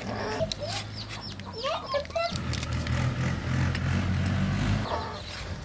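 Chickens clucking in short bursts over a steady low engine hum that swells in the middle and fades near the end.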